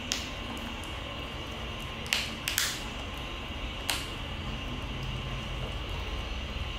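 A Pomeranian puppy chewing a rabbit-ear dog treat: a few sharp crunching clicks, one right at the start, three close together about two to two and a half seconds in, and one near four seconds, over a steady low hum.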